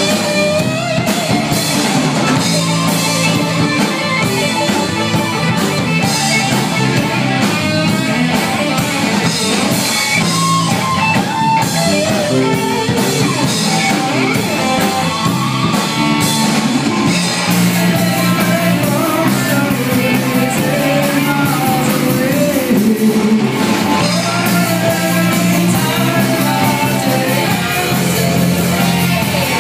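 Live rock band playing: electric guitars over bass and drum kit, with a melodic lead line on top.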